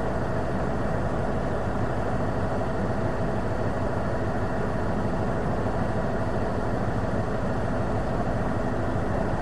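Steady helicopter engine and rotor noise heard from inside the cabin: a fast, low, even throb with a constant whine above it.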